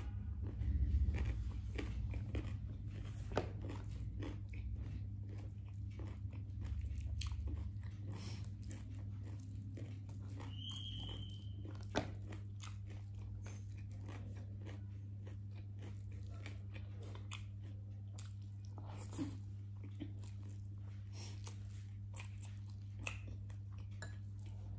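A person eating close to the microphone: irregular crunchy bites and chewing, over a steady low hum. A brief high squeak sounds about ten seconds in.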